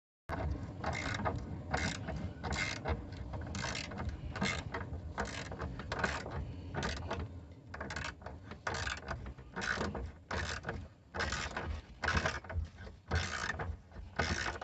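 Hand socket ratchet wrench clicking in repeated short strokes, roughly one or two a second, as a bolt on the underside of the car by the fuel tank is turned.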